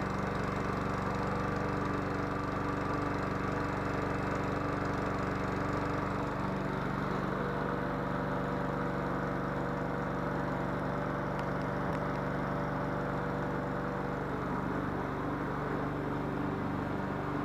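Small engine of a radio-controlled lawn mower running steadily at idle, with a slight change in its tone about six seconds in.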